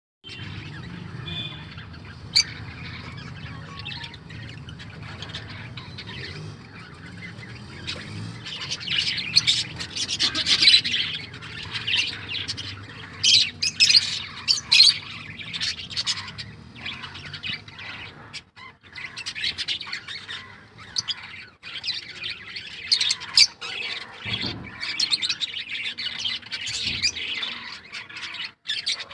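A mixed group of pet budgies, lovebirds and small parrots chattering and squawking in many rapid, short, high calls. The calls are sparse at first and grow busy about a quarter of the way in. A low hum runs under the first part.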